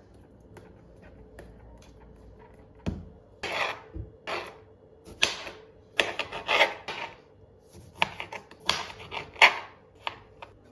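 Kitchen food preparation: one sharp knock about three seconds in, then about a dozen short scraping strokes in an uneven rhythm.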